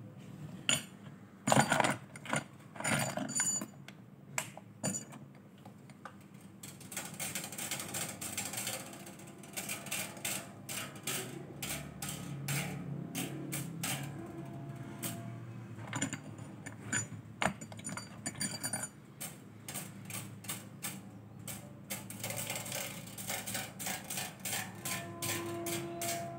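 Squier bass guitar strings and tuning machines being handled and turned: a long run of irregular clicks, taps and rattles. A plucked string rings briefly near the end.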